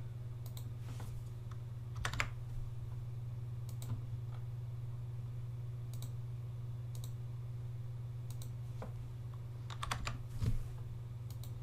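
Scattered keystrokes and clicks on a computer keyboard and mouse, a few at a time with pauses between them and a small cluster near the end, over a steady low hum.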